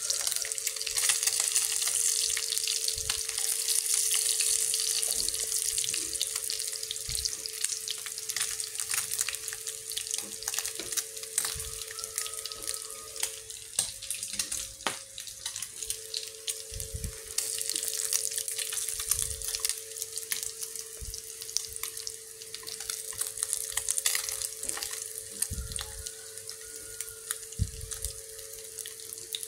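Cá chốt catfish frying in a pan of hot oil, a steady crackling sizzle that swells and eases. A steady hum runs underneath and drops out for about two seconds midway.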